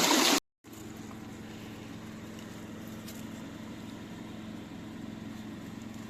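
Rushing stream water that cuts off abruptly, followed by a steady low hum with a few faint ticks.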